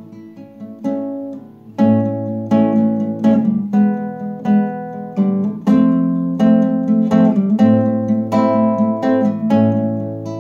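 Classical nylon-string guitar playing plucked chords, soft for the first couple of seconds and then louder.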